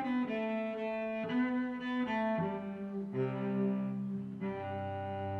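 Instrumental background music: a slow melody of sustained notes that settles into long held low notes about halfway through.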